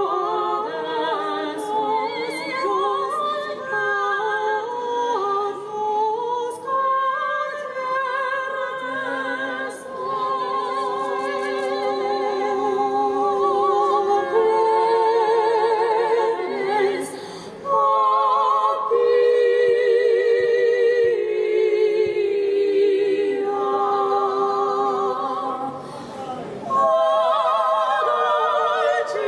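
Operatic voices singing together in classical style with wide vibrato, several parts at once, pausing briefly between phrases twice.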